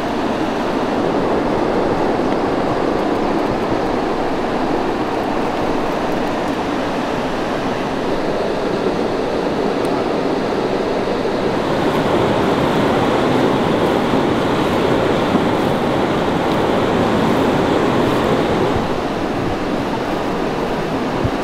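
Steady rushing of flowing water, like a mountain stream, swelling slightly about halfway through.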